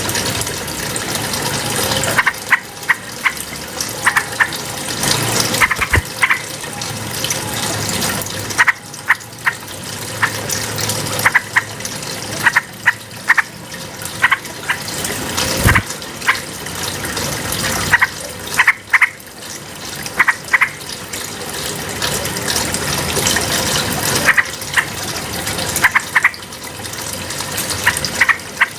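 Yellow-vented bulbul (trucukan) calling: short, sharp high notes in quick clusters of two or three, repeated every second or two, over a steady rush of flowing water.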